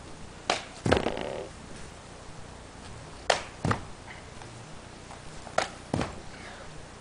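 Three pairs of sharp thumps, the two hits in each pair less than half a second apart: bare feet and hands landing on a grass lawn during acrobatic tricks.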